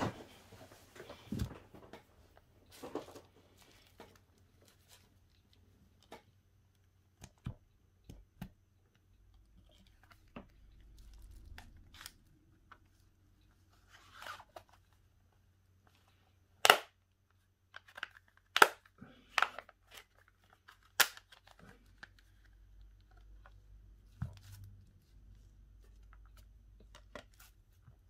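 Small hard parts and tools being handled during a smartphone screen repair: scattered sharp clicks and taps, the loudest three coming in the second half, with a few brief crinkling, rustling passages between them.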